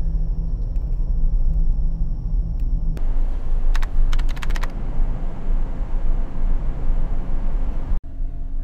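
Steady low rumble of the ferry's engines and hull, heard inside the ship. About four seconds in, a quick run of about eight keyboard-typing clicks lasts under a second, an added typing sound effect.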